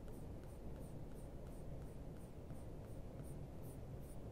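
Soft-core Prismacolor Premier colored pencil scratching on paper in short, even shading strokes, about three a second; faint.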